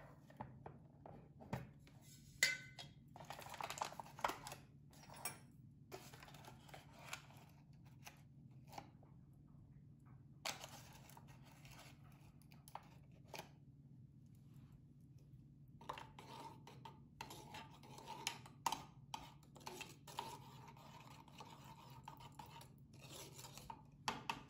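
Faint rustling of a foil coffee bag and light clinks and scrapes of a metal spoon as ground Turkish coffee is spooned into a pot, then stirred, over a steady low hum.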